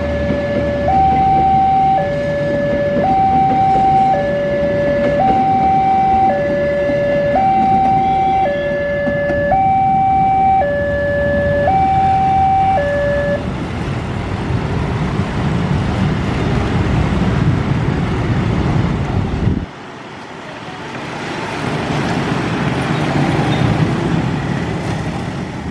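Railway level-crossing warning alarm sounding a loud two-tone electronic signal, alternating high and low about once a second, over the rumble of passenger coaches rolling past. The alarm stops about halfway through as the train clears. After a sudden cut, street traffic and motorcycles cross the tracks.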